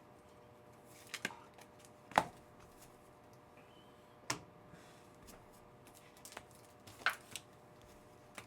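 Trading cards being handled on a table: a few sharp taps and clicks with light sliding in between, the loudest tap about two seconds in.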